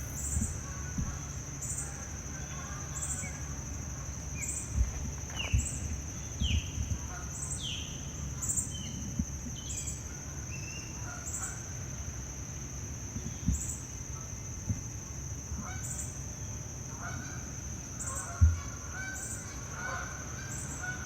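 Birds calling: several short downward-sliding calls in the first half, then repeated short calls, over a steady high-pitched whine and a low rumble with a few thumps.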